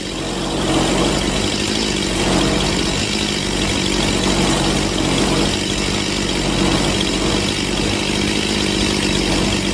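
Stihl MS181 C two-stroke chainsaw engine idling steadily at about 2,880 RPM, freshly tuned on its low-speed carburettor setting.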